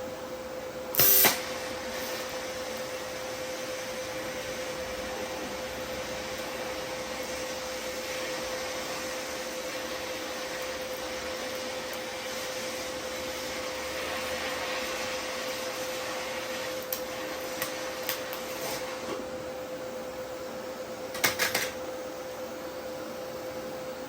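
TIG welding a crack in a Toyota 1JZ oil pan: a steady hiss with a constant hum, broken by a sharp crackle about a second in and a cluster of crackles near the end.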